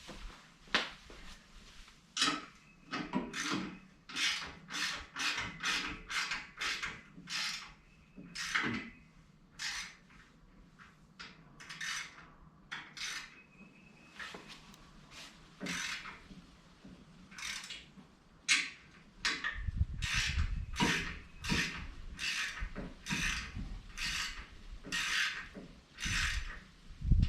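Repeated ratcheting strokes, about one and a half a second, as the winch-mounted boat step's fastenings are worked. A low rumble joins in from about two-thirds of the way through.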